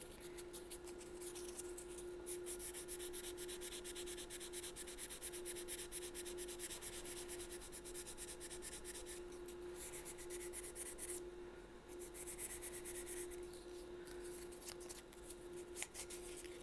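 Hand-sanding the wooden body of an Albert-system clarinet around the thumb rest: quick, short rubbing strokes with a few brief pauses, smoothing the wood so nothing is felt under the thumb.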